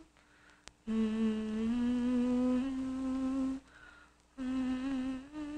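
A voice humming a slow tune in long held notes that step up and down in pitch, breaking off twice.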